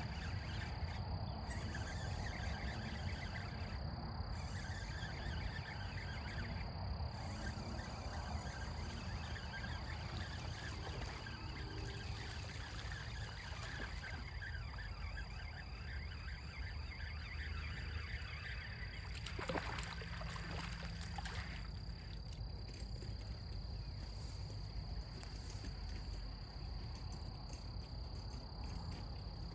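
Lakeside ambience: a steady cricket drone over a low rumble, with a short burst of noise about twenty seconds in.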